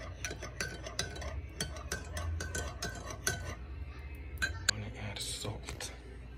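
Metal spoon stirring coffee in a ceramic mug, clinking against the sides about three times a second, with a couple of louder clinks near the end.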